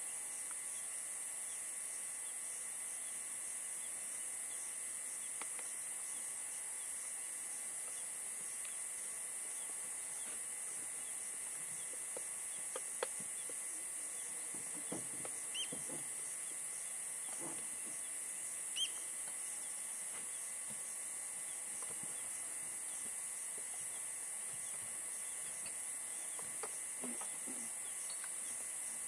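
Steady high-pitched hiss with a few faint short chirps and clicks a little before and after the middle.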